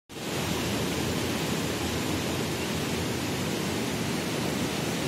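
A river in flood, its fast brown water rushing past below a bridge in a steady, even roar of noise.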